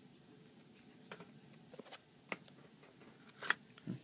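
A handful of light, sharp clicks and taps, the loudest about three and a half seconds in, as an iPad mini's LCD panel is handled and set into place in the housing.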